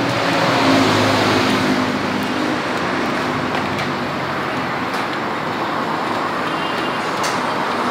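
Steady road-traffic noise with a motor vehicle's engine audible in the first couple of seconds, and a couple of light clicks later on.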